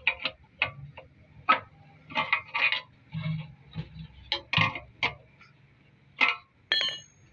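Irregular sharp knocks and clicks, about a dozen, of a wooden tool working against a Honda CD 70's steel fuel tank to push out a dent. One knock near the end rings briefly.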